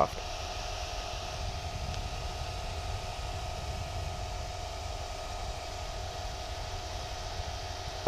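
Steady whir of the cooling fan in a small LED moving-spot light fixture running with its lamp on, with a faint steady tone through it.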